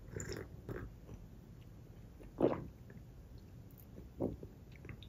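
Close-up sipping and swallowing of tea: a few short, separate mouth sounds, the loudest about halfway through and another near the four-second mark.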